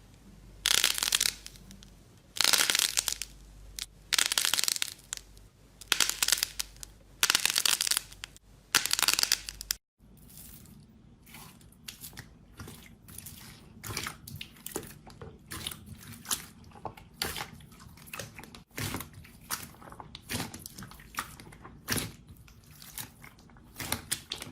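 Crunchy slime squeezed by hand, six loud crunching bursts about a second and a half apart. After a cut about ten seconds in, many quieter quick clicks and pops of slime being handled.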